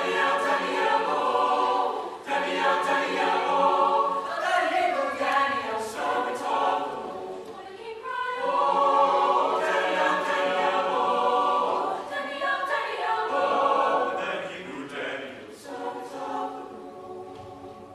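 Choir singing in sustained, swelling phrases, fading out near the end.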